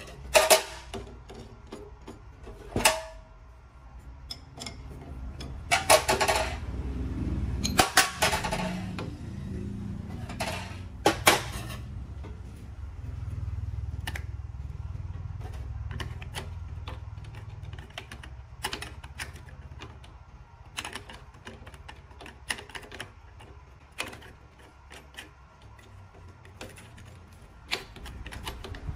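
Hands changing an angle grinder's cutting disc, grinder switched off: scattered clicks, clinks and knocks of metal parts being handled, with a few louder clanks in the first half, one of them ringing briefly.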